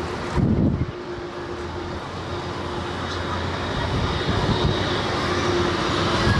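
Jet airliner engines running, with a steady whine, slowly growing louder. A short low rumble comes about half a second in.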